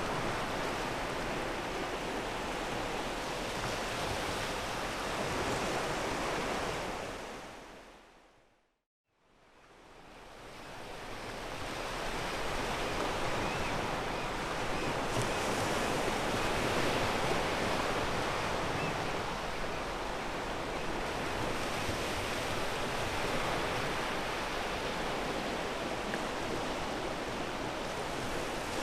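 Ocean waves washing onto a pebble beach, a steady rushing surf. About eight seconds in the sound fades out to silence and then fades back up over a few seconds.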